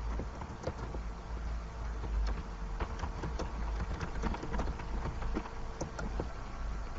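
Open voice-chat microphone carrying background noise: a steady low hum with a faint steady tone above it, broken by irregular faint clicks and crackles.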